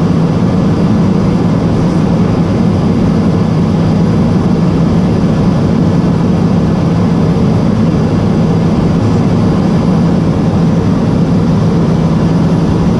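Rolls-Royce turboprop engine and propeller of a Cessna P210 Silver Eagle running steadily in flight, heard inside the cockpit as a loud, even drone with a strong deep hum.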